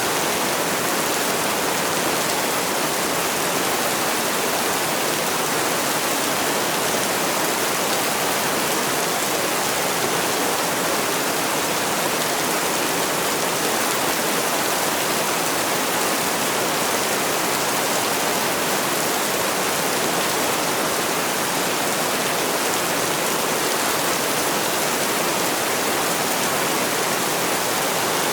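Heavy rain falling: a steady, even hiss that does not change.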